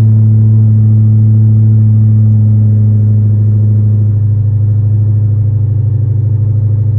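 The supercharged 6.2-litre Hemi V8 of a 2019 Dodge Charger Hellcat idles just after starting on a freshly flashed tune, heard inside the cabin. The steady fast-idle drone settles lower about four seconds in, turning into a pulsing idle, a sign that the engine starts and idles properly on the new tune.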